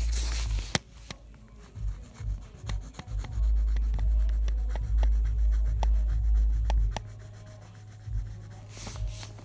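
Handling noise: fingers rubbing against the phone close to its microphone, a heavy low rumble at the start and again through the middle, with scattered light clicks in between.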